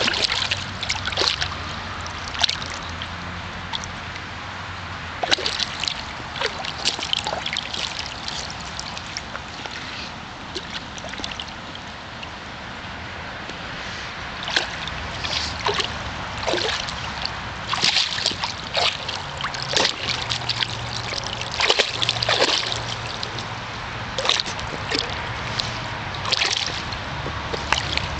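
A dog's paws splashing and sloshing in the shallow water of an inflatable kiddie pool as she paws after goldfish. The splashes come irregularly and grow more frequent about halfway through.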